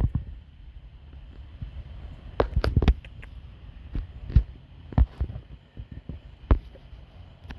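Irregular knocks and rustles, spaced unevenly with a cluster about two and a half seconds in, from an animal moving about as it beds down.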